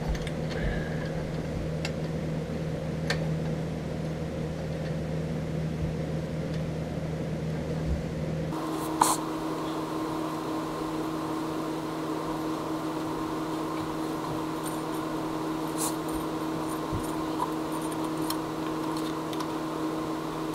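A steady machine hum that changes pitch about eight and a half seconds in, with a few faint clicks of metal parts being handled.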